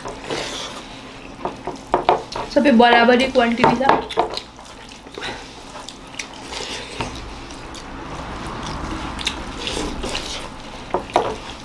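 Eating sounds: hands mixing and squishing rice with dal and curry on steel plates, with small clicks against the metal and mouth sounds of chewing. A voice is heard briefly about three seconds in.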